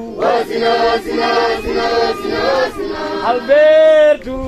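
A choir singing, several voices together, with a long held note about three-quarters of the way through.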